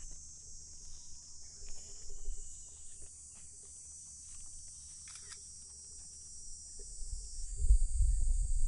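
Steady high-pitched chorus of insects in the grass. A low rumbling on the microphone builds near the end.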